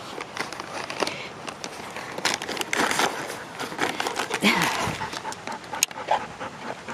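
A husky panting with its head in a cardboard box, rustling paper and knocking the cardboard as it noses through paper bags of treats, with many small crinkles and clicks. About halfway through there is a short falling vocal sound, the loudest moment.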